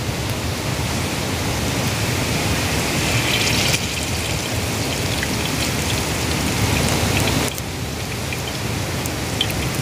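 Hot oil sizzling on an iron dosa griddle, rising briefly about three seconds in as a whole masala-coated fish is laid into it, then frying steadily. A steady rush of flowing water runs underneath.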